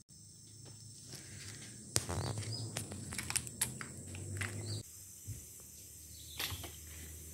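Outdoor ambience of insects, a steady high droning tone, with scattered short clicks and rustles.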